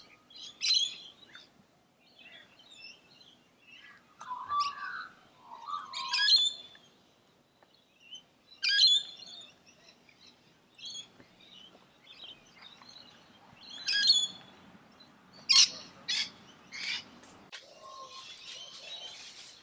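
Wild birds calling and chirping in short bright phrases every second or two, some with quick gliding notes, over faint outdoor background.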